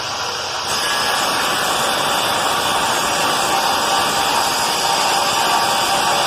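A power tool running at a steady speed, giving an even, unchanging whirring hiss.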